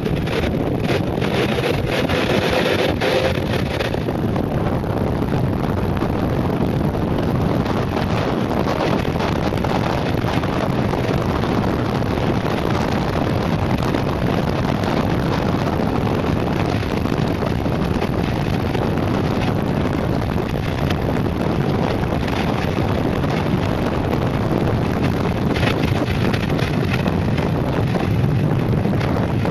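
Steady rush of wind buffeting the microphone, mixed with the rumble of mountainboard tyres rolling fast on asphalt.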